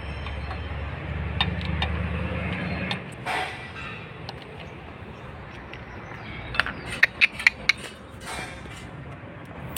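Small sharp clicks of hands working at a car's fuse box: a low hum for about the first three seconds, then a quick run of four or five clicks a little past halfway.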